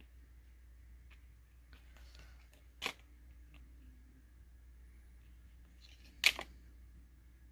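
Faint rustling of card packs and packaging being handled, with two short sharp snaps about three and a half seconds apart; the second snap is the louder.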